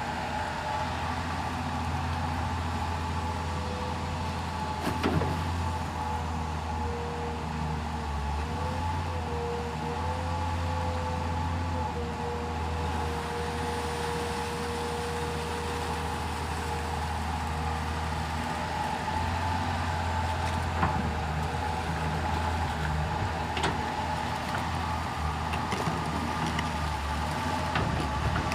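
Komatsu PC210 hydraulic excavator working: its diesel engine drones steadily, a wavering whine runs through the middle stretch, and there are a few short, sharp knocks.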